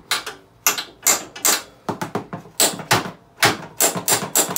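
A rapid, irregular string of sharp clicks and clatters, a dozen or so in four seconds, from hands and a tool working on the Honda Foreman 500 ATV's fittings while its new battery is fastened in.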